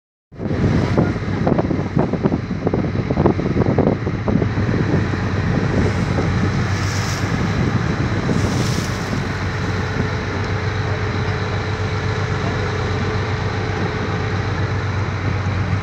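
Wind buffeting the microphone over a steady low engine hum, with the heaviest gusts in the first few seconds.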